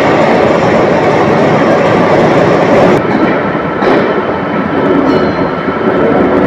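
Engine lathe running with a tin bronze gear blank spinning in its chuck: a loud, steady mechanical rumble, with two brief clicks about three and four seconds in.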